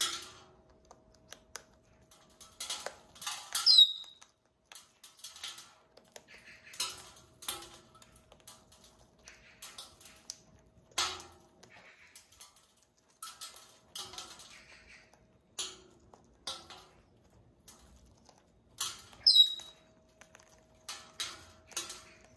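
An African grey parrot and a cockatoo biting and crunching food held in their feet: irregular crisp clicks and crackles from their beaks. Twice, about four seconds in and again near the end, a brief high squeak that falls in pitch.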